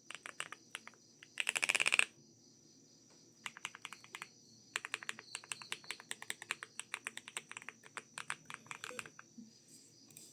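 Typing on a Star80 mechanical keyboard with an aluminium plate, MMD Princess linear switches and Womier Timeless keycaps: a run of separate keystrokes, a fast flurry of keypresses about a second and a half in, a short pause, then steady typing again.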